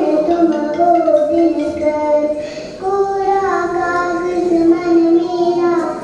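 A young girl singing solo into a microphone, in long held notes that glide between pitches, with a short breath about three seconds in.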